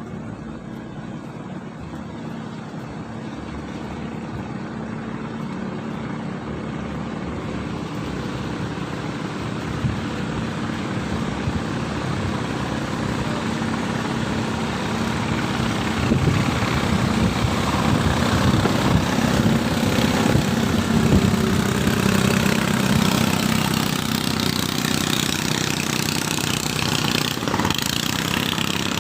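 Small boat engine running steadily, with a low hum under a dense mechanical noise. It grows gradually louder over the first twenty seconds or so, then holds.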